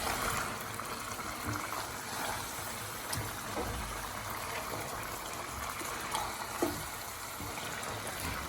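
Chicken pieces being stirred with a spoon in a pot of simmering spiced onion sauce: steady wet bubbling with a few short scrapes and knocks of the spoon.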